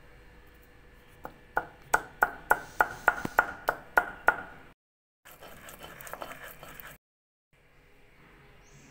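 Stone roller (nora) knocking down on a stone grinding slab (shil) to crush whole peanuts, seeds and ginger: about a dozen sharp, ringing strikes, roughly three a second. Then comes a stretch of the roller rasping as it grinds the spice mix into a paste.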